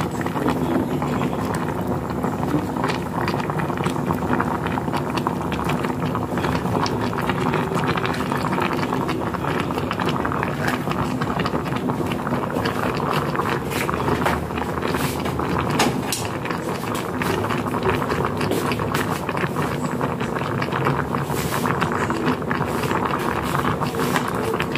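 Pot of jackfruit pieces in coconut milk boiling, with a steady bubbling crackle.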